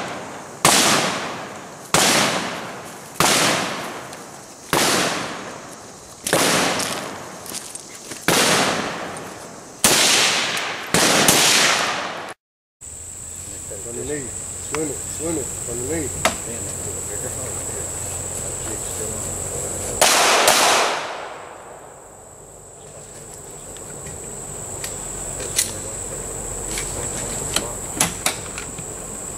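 A string of about ten gunshots, roughly one a second, each ringing out with a long echo, breaks off abruptly about 12 seconds in. After that a steady high-pitched insect buzz runs on, with one more echoing gunshot about 20 seconds in and a few faint clicks near the end.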